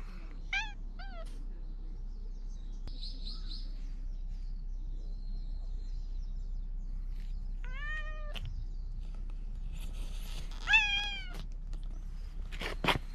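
Stray cat meowing loudly in short, insistent calls: two quick meows at the start, a longer one about eight seconds in, and the loudest about eleven seconds in. A bird chirps faintly about three seconds in.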